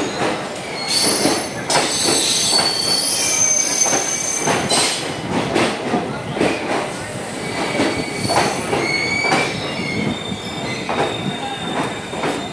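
Railway train running, its wheels squealing against the rails in high tones that come and go, over a constant clatter of irregular clanks.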